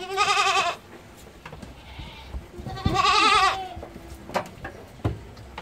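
Young goats bleating twice, each a loud wavering cry, the second one longer, followed by a few sharp knocks.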